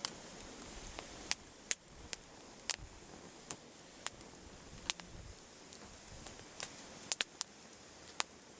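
Campfire wood crackling: irregular sharp pops and snaps, about one or two a second, over a faint steady hiss of burning.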